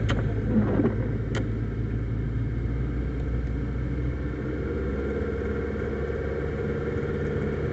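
Car driving at low speed, its engine and road noise a steady low hum heard from inside the cabin, with a single sharp click about a second and a half in.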